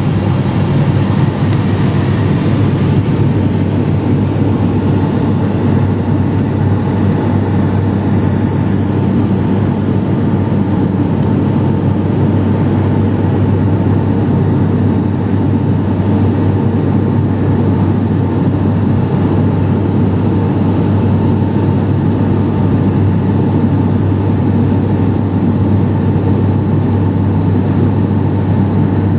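ATR 72-500 turboprop engines and propellers running, heard from inside the cabin as a steady, even drone with a strong low hum.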